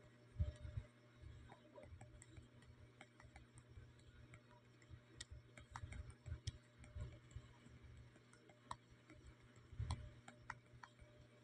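Near silence with faint, irregular ticks and clicks and a few soft low thumps.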